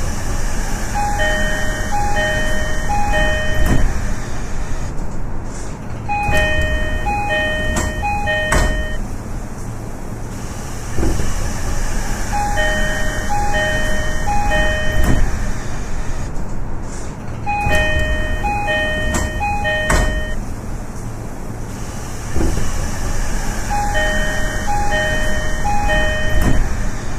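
JR East E233-series EMU door chime sounding five times, each a high-low two-note chime repeated three times, as the sliding doors cycle open and shut. Sharp door-mechanism clunks come around each chime over the steady hum of the train.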